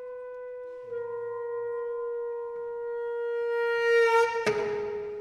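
Contemporary chamber music: a long sustained woodwind note, rich in overtones, swelling louder toward the end. About four and a half seconds in, a sharp struck accent cuts in, and a slightly lower note is held after it.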